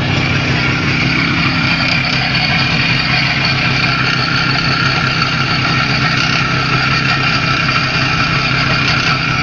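IZh Jupiter 5 motorcycle's two-cylinder two-stroke engine idling steadily, warmed up. It runs with a strange knock that the owner places in the left cylinder of the freshly rebuilt engine, still being run in.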